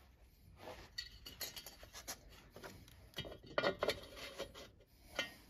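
Faint, scattered light clicks and rubbing of small metal parts as a piston ring is handled and pushed into a cylinder bore for a ring end-gap check, with cloth brushing close by about four seconds in.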